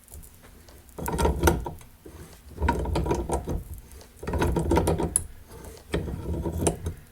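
A seized bearing on a Case 224 mowing deck spindle shaft being worked back and forth, a rough grinding, clicking rattle in four strokes about a second and a half apart. It has been loosened with heat and penetrating oil and now turns more easily.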